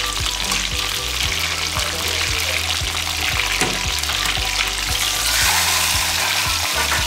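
Marinated whole chicken sizzling as it shallow-fries in hot oil in an aluminium kadai, being turned over with a metal slotted spoon; the sizzle grows louder about five seconds in as the turned chicken settles back into the oil.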